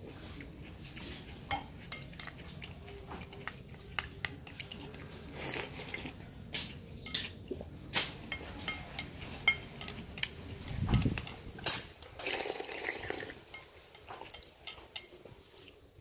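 Eating utensils clinking and scraping against a ceramic bowl of noodles, with many sharp clinks scattered throughout. There is a short, dull thump about eleven seconds in.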